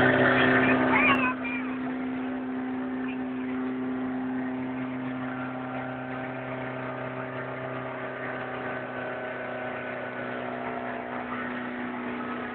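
Motorboat engine running at a steady speed, a constant drone under faint wind and water noise. A high voice squeals briefly in the first second.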